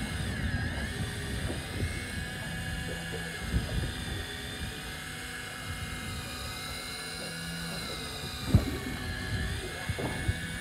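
Electric fishing reel motor winding in line against a hooked fish: a whine that dips and rises in pitch as the load changes, over a low rumble, with a sharp knock about eight and a half seconds in.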